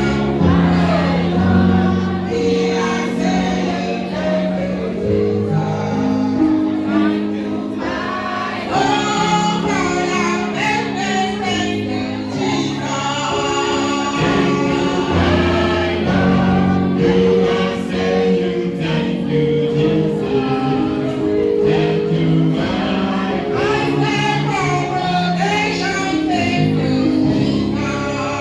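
A choir singing a gospel song over steady held notes of instrumental accompaniment.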